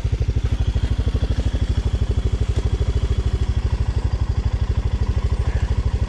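A small engine running steadily nearby, an even low beat of about a dozen pulses a second.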